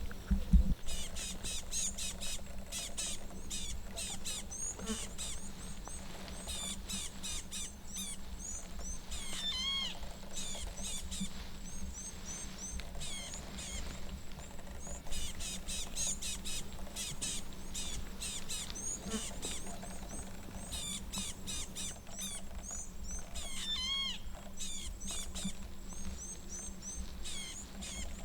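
Bush ambience: small birds chirping in quick clusters of short, high calls, with now and then a louder falling call, over a faint steady high tone.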